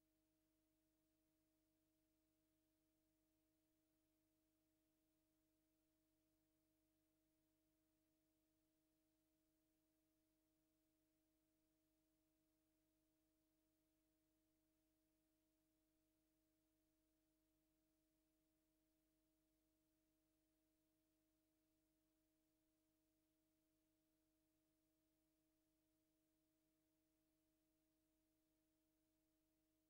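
Near silence: only a very faint, steady hum of a few low tones over hiss, with no other sound.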